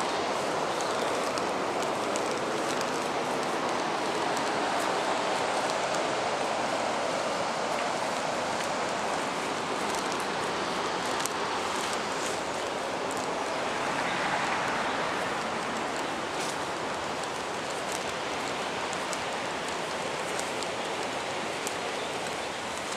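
River weir: water pouring over it with a steady rushing noise that eases slightly near the end.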